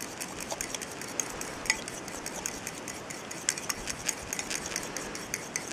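A hand utensil whisking a ketchup-and-mayonnaise sauce in a small bowl, with quick, irregular clicks against the bowl.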